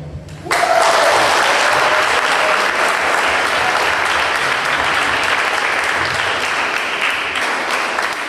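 Audience applauding. The clapping breaks out suddenly about half a second in and keeps up at an even level.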